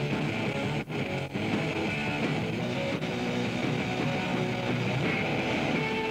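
Soundtrack music with guitar playing, with two brief dropouts in level about a second in.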